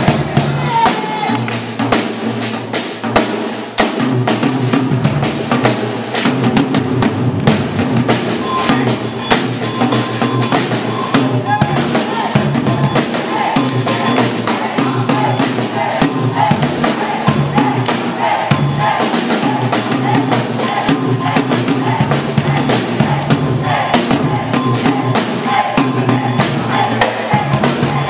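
Drum kit played live in a busy, fast hip-hop groove, with kick drum and snare strokes dense throughout and a brief lull just before four seconds in.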